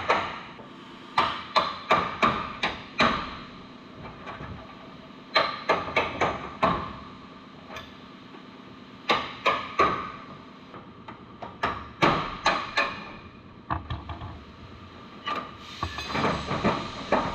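Hammer driving a chisel between an aluminium Ford F-150 bedside skin and the inner box panel to split them apart: sharp blows in quick runs of a few strikes, with short pauses between runs.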